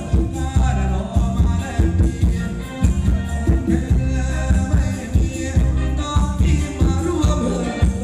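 Thai ramwong dance music from a live band, loud, with a heavy steady beat and a melody over it.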